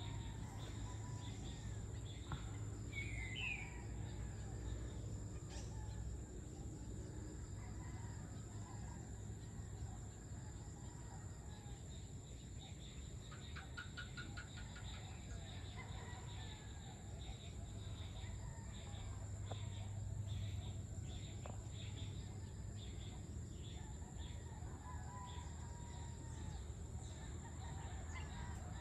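Evening outdoor ambience of insects and birds: a steady high-pitched insect drone with rapid cricket-like pulsing, scattered bird chirps and a short trill about halfway through, over a low steady hum.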